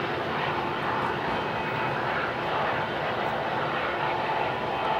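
Steady, even roar of a heavy vehicle, with a faint hum running through it.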